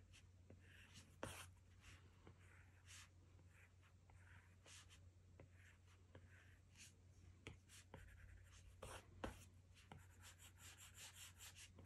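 Faint taps and scratches of an Apple Pencil tip on an iPad Pro's glass screen, drawing many short strokes in quick succession.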